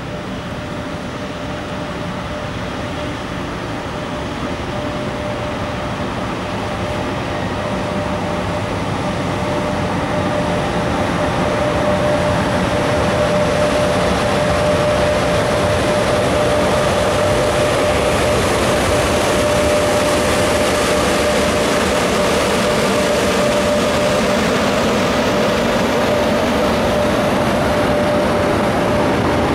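EP1M electric locomotive and its passenger coaches arriving and rolling past, with a rumble that grows louder over about the first twelve seconds as the train approaches and then holds steady as the coaches go by. A steady whining tone runs through the middle and later part.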